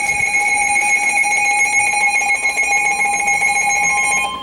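Emergency Alert System attention signal: a loud, steady electronic alarm tone holding several pitches at once, which cuts off abruptly near the end. It is the tone that announces a warning bulletin.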